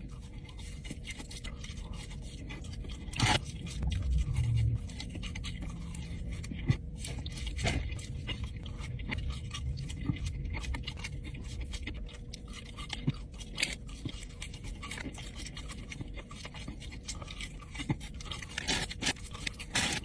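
A person chewing and munching breaded chicken nuggets, with irregular small clicks, scrapes and handling noises.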